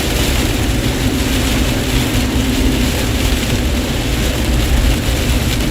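Inside a moving car on a highway flooded with standing water: a steady rush of rain and tyre spray against the body over a low road rumble.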